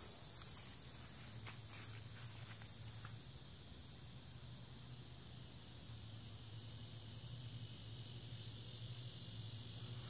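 Faint, steady chirping of insects: an even high drone with a quicker, regularly pulsing chirp running through it.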